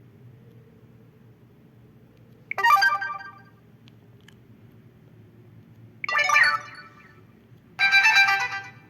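Samsung GT-I5500L phone playing one of its preloaded ringtones through its speaker: three short, bright electronic phrases of a second or less, the first on its own and the last two close together.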